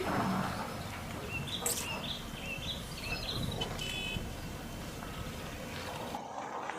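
Heavy construction machinery running with a steady rumbling engine noise. A string of short, high chirps comes through about a second in and lasts roughly two seconds.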